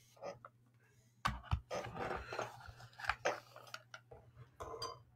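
Faint, irregular clicking and tapping of typing on a keyboard, over a steady low hum.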